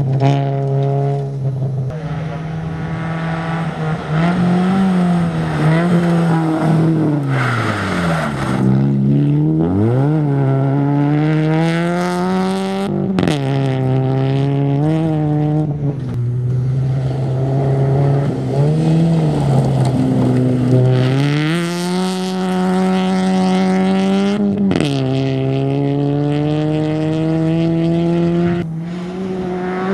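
Rally car engines at full throttle on a loose gravel stage, the pitch climbing through each gear and dropping sharply at every shift or lift, over and over as the cars power through corners. A hiss of tyres and thrown gravel runs under the engine note.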